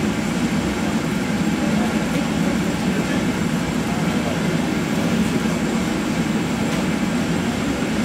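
Steady, unchanging roar of a glassblowing workshop's furnaces.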